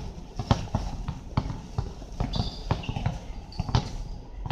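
A basketball bouncing on the hard court amid players' running footsteps: irregular thuds about two a second, with a couple of short high squeaks in the middle.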